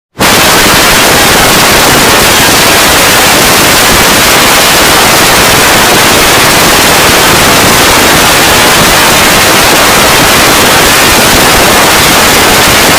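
Extremely loud, heavily distorted static-like noise from a digitally processed sound effect. It cuts in abruptly right at the start and then holds steady at a constant level.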